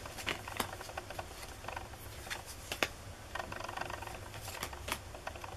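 Pokémon trading cards being flipped through by hand, each card slid from the front of the stack to the back: a loose, irregular run of small clicks and card-on-card flicks, one sharper snap a little before the middle.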